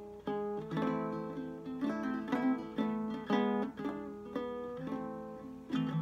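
Ukulele strummed in a steady rhythm, about two chords a second, each chord ringing on between strums.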